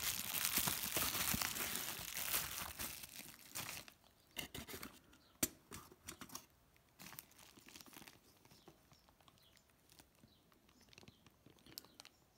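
Plastic bubble wrap crinkling and crackling as it is pulled open for about the first four seconds. After that come scattered light clicks and taps from handling the small circuit board.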